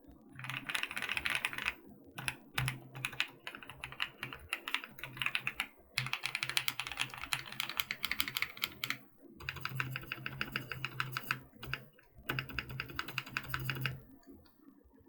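Rapid typing on a QK65 mechanical keyboard: quick runs of keystrokes broken by short pauses.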